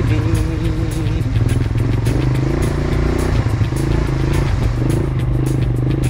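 Background music with a beat and a melody, over the steady running of an ATV engine.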